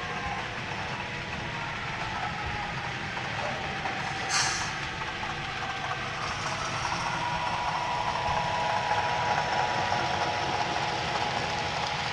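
Athearn HO-scale EMD GP9 model locomotive running with its Tsunami 2 sound decoder playing diesel engine sound through its small onboard speaker, together with the wheel noise of the model freight train on the track. The sound is steady and grows a little louder in the second half, with a short sharp burst about four seconds in.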